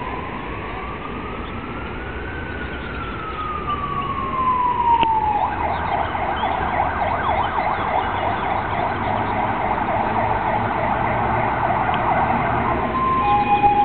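Fire engine and ambulance sirens. First a slow wail that rises for about two seconds and falls over the next three; about five seconds in it switches to a rapid yelp, and just before the end a two-tone hi-lo siren starts up.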